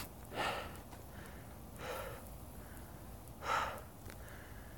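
A hiker breathing hard close to the phone microphone, three heavy breaths about a second and a half apart, winded from the climb to the summit.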